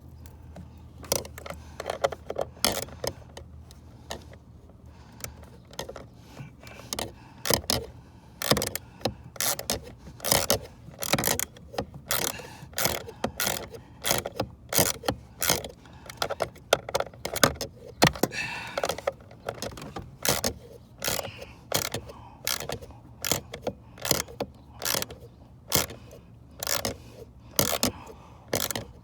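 Metallic clicking and clinking in short, irregular runs: a hand ratchet and socket working a blower-motor mounting bolt in a tight space under the dash.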